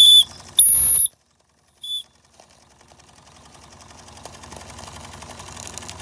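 Steam whistle on an Empire No. 31 toy steam engine blown in three short, shrill toots, the second the longest. Afterwards the small engine's fast, even chuffing runs on and grows louder.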